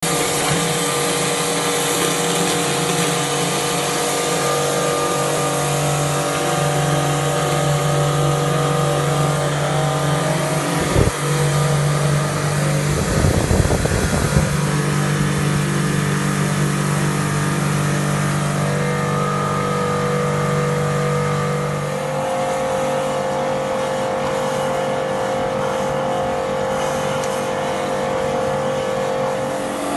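High-pressure drain jetter running, a steady engine drone with a hiss of water as its hose works through the drain pipe. A sharp knock comes about eleven seconds in, then a short rattling burst a couple of seconds later.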